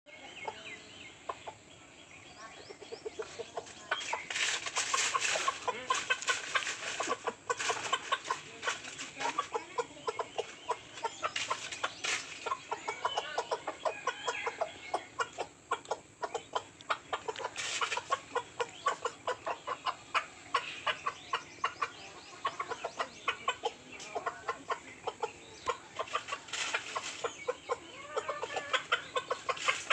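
A rooster clucking rapidly and over and over, calling hens to food, with short bursts of rustling in dry leaves as it scratches.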